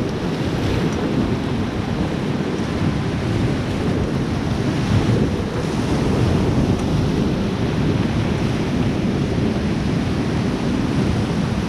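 Rushing river water around a raft in rapids, with heavy wind buffeting on the microphone, a steady dense noise.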